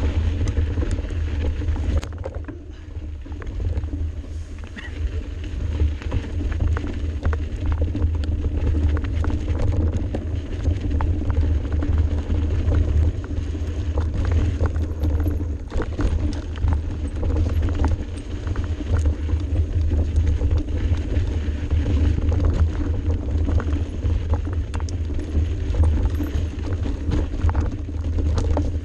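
Mountain bike descending a dirt singletrack at speed: a constant low rumble of wind and vibration on the bike-mounted camera's microphone, with many small knocks and rattles as the tyres run over the trail's bumps.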